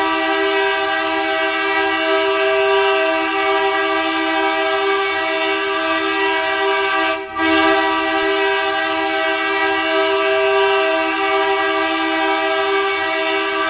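Hockey arena goal horn blasting a steady chord of several tones, signalling a Team Canada goal. It sounds in two long blasts with a brief break about seven seconds in.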